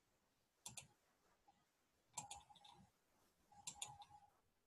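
Faint clicking at a computer: three short clusters of clicks, about a second and a half apart, as the text cursor is moved through the document.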